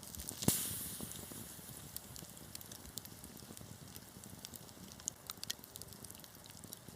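Wood fire crackling in a fireplace, with scattered sharp pops. One loud pop about half a second in is followed by a brief hiss that fades.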